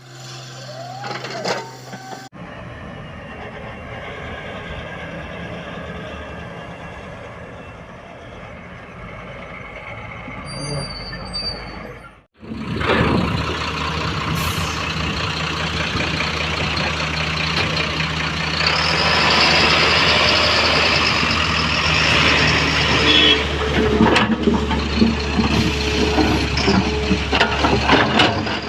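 Heavy diesel machinery running, an excavator working alongside a truck. The engine sound is steady and breaks off abruptly about two and twelve seconds in. It is louder after the second break, with a high whine in the later part.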